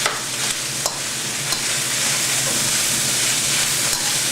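Fried rice with Spam and onion sizzling in oil in a hot wok while being stirred, with a few light scrapes or clicks of the utensil against the wok near the start.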